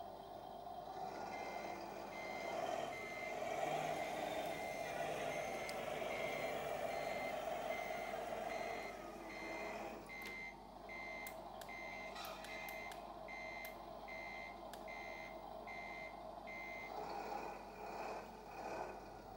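Reversing beeper of an RC Mercedes Actros truck, a high electronic beep repeating evenly, about one and a half beeps a second, that stops near the end. Under it runs a steady hum, louder in the first half, and a few sharp ticks come in the second half.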